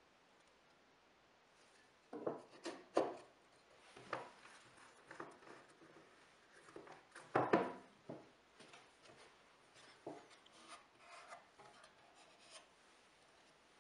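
Pine box sides and a plastic-cornered Bessey band clamp being handled and fitted together: scattered knocks and rubbing starting about two seconds in, the loudest knock about seven and a half seconds in.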